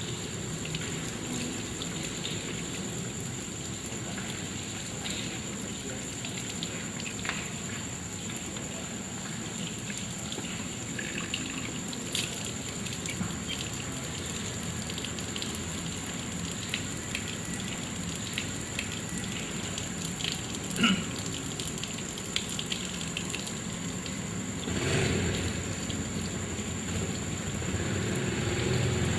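Water running steadily from an outdoor tap and splashing over hands and skin, with a steady faint high whine underneath. A brief sharp knock comes about two-thirds of the way in, and the splashing grows louder and fuller over the last few seconds.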